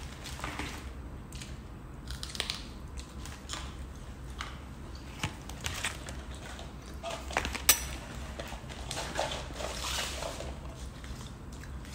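Close-up eating sounds: chewing and biting, with small scattered clicks and rustles of food being handled and one sharp click a little past halfway.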